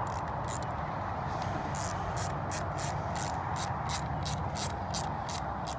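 Small hand ratchet turning the screws of an ATV thumb throttle housing, the pawl clicking in short bursts about four times a second as the handle swings back and forth, over a steady background hum.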